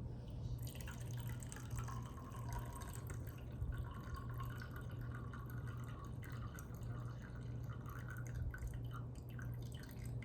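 Coffee pouring from a glass French press carafe into a mug. The liquid trickles steadily from about half a second in, and the filling note rises slowly as the mug fills.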